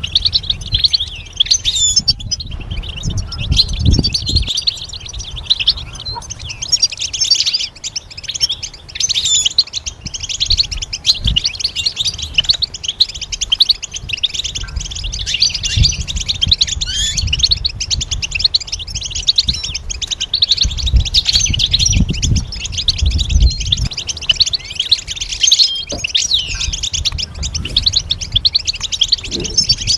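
European goldfinch singing a long run of rapid twittering chirps and trills, with low dull thumps now and then.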